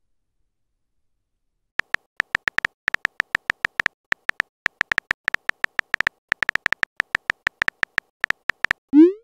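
Keyboard-tap sound effects of a texting-story app: a long run of short, sharp clicks at an uneven pace, roughly five a second, starting about two seconds in. Right at the end a rising swoop begins, the app's message-sent sound.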